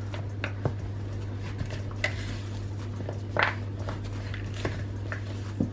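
Hands kneading and squeezing stiff chocolate cookie dough with chunks of chocolate in a bowl, with a few soft knocks against the bowl. A steady low hum runs underneath.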